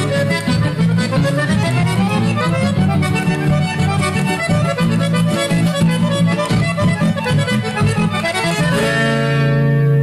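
Accordion-led folk music from a 1986 cassette recording, the accordion playing fast runs of notes over a strummed accompaniment. Near the end it settles into a long held chord.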